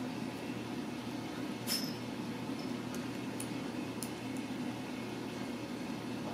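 Ragdoll kitten suckling from a feeding syringe: a few faint small clicks over a steady low hum, with one louder click about two seconds in.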